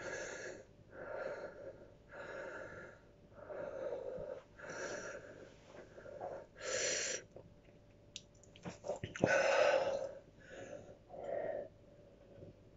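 Heavy, wheezy breaths through an open mouth, about one a second, with a louder, longer one about nine seconds in: a man panting against the burn of a superhot chili pepper.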